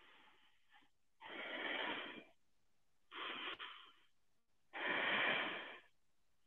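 A man's deliberate belly breathing while holding a yoga cobra pose: three slow, audible breaths of about a second each, faint and breathy.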